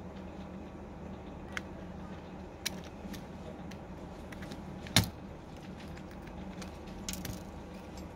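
Small sharp clicks and taps of metal tweezers on a smartphone's internal parts as flex-cable connectors and components are prised loose, with one louder click about five seconds in. A steady low hum sits underneath.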